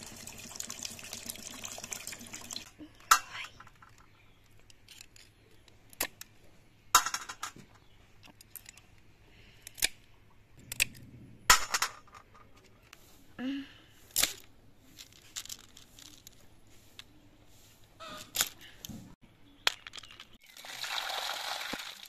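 Water pouring over rice in a steel bowl, then single snail shells clinking onto a steel plate every second or few, then water running over a bowl of snails near the end.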